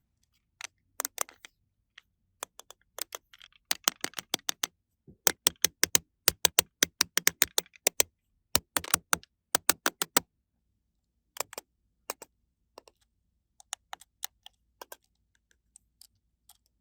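Small hard plastic toy pieces clicking and tapping in quick, irregular runs, like keys being typed, thinning out to scattered single clicks near the end.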